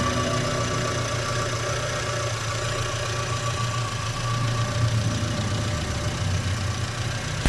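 Proton Wira's 4G15 four-cylinder petrol engine idling steadily after its overhaul and carburettor service.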